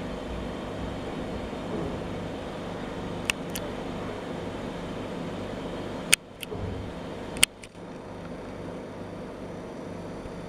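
A steady mechanical hum, broken by a few sharp clicks, two of them followed by a brief dip in the hum.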